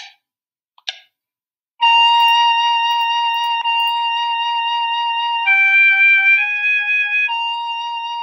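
Sight Reading Factory's synthesized flute playing back a simple sight-reading exercise, set up by two metronome count-in clicks about a second apart. The flute holds one long note for about three and a half seconds, steps down to two shorter lower notes, then returns to the first pitch.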